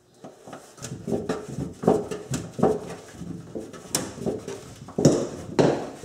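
Screw being backed out of a microwave's sheet-metal mounting plate with a hand screwdriver: a run of short, irregular squeaks and scrapes, about two a second, as the screwdriver turns.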